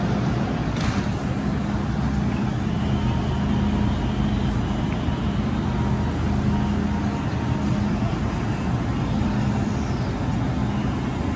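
MTR M-Train electric multiple unit running on the Kwun Tong line: a steady rumble of wheels and motors, with a low hum that fades in and out.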